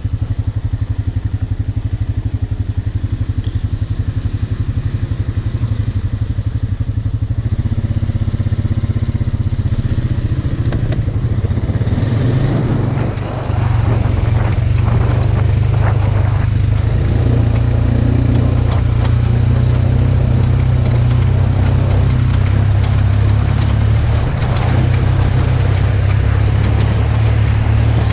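Polaris RZR side-by-side's engine running steadily. About halfway through it briefly drops, then runs louder and harder, with knocks and rattles as the machine works.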